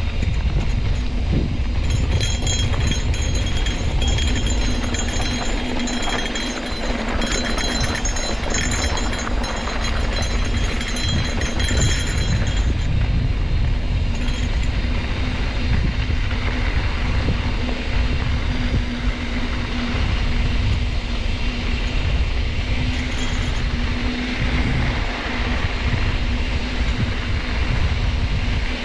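Trek Roscoe 8 hardtail mountain bike being ridden down a dirt trail: the tyres rumble and the bike rattles over the ground, mixed with wind rushing over the camera microphone. A high buzz runs from about two seconds in to about twelve seconds in.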